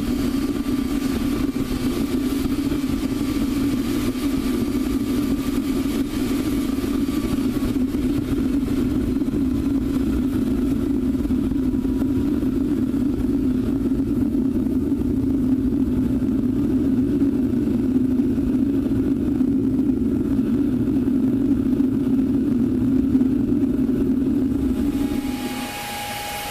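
Propane-fired homemade multi-fuel foundry burner firing into the furnace: a steady roar with a low hum. The hum stops and the sound drops in level near the end.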